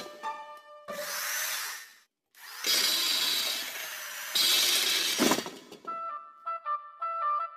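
Two stretches of loud, harsh noise as animated-cartoon sound effects: a short one, then after a brief silence a longer one that grows louder near its end. Light background music plays briefly before and after.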